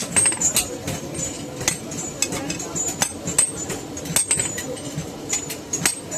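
Hand hammer striking hot iron on an anvil, irregular metallic blows about two or three a second, some with a short high ring.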